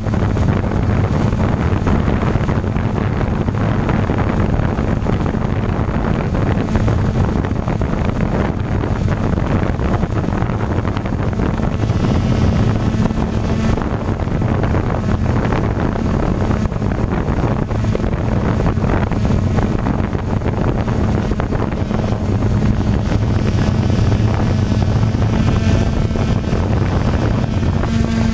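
Motor of a camera-carrying RC aircraft running steadily in flight, an even hum under wind noise on the microphone.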